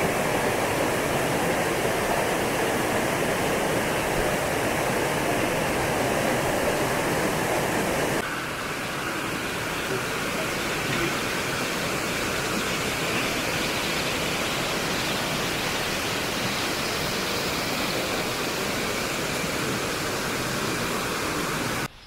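Steady rush of water falling from a waterfall. About eight seconds in it switches abruptly to a slightly quieter, thinner rush, and it stops suddenly at the very end.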